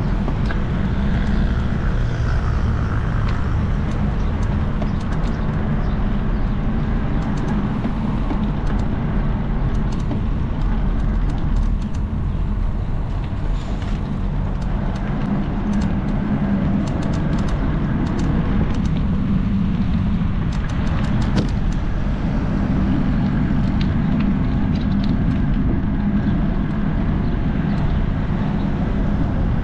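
Steady low rumble of road vehicle noise.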